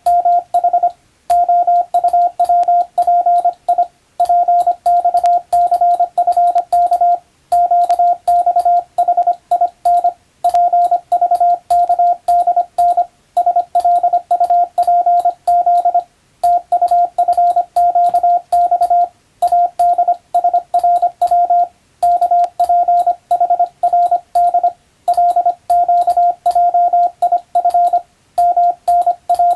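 Morse code practice: a single steady beep tone keyed on and off in rapid dots and dashes, broken into groups by short pauses every two or three seconds.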